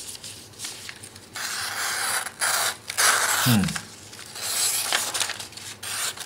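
A knife blade slicing through sheets of paper in several rasping strokes, the paper scraping and tearing. It is a paper-cutting test of an edge worn after dressing a deer, rough and "hairy" at its most used portion.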